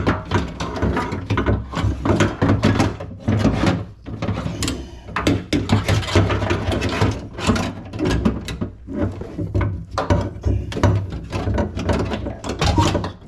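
Metal window regulator assembly being worked into a car door: a busy run of irregular clicks, knocks and rattles as the parts are handled and shifted inside the door shell.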